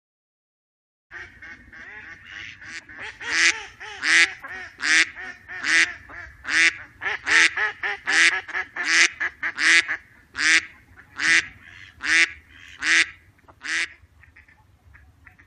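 A duck quacking over and over, starting about a second in with softer chatter, then loud quacks about every 0.8 s. The loud quacks stop near the end, leaving fainter short calls.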